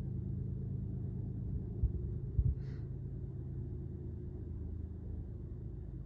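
Low, steady rumble of distant diesel locomotives hauling a loaded coal train up a steep grade, with two dull thumps about two seconds in.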